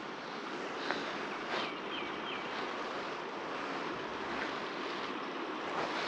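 Steady rush of flowing river water, with a few faint high chirps about two seconds in.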